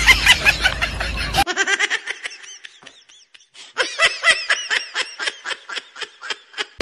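Laughter: a long run of short, even 'ha-ha' bursts, about four a second. A low rumble under it cuts off suddenly about a second and a half in.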